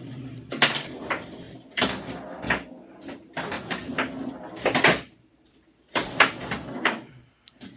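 Foosball table in play: irregular knocks and clacks as the players' figures strike the ball and the rods bang in the table, with a short lull about five seconds in.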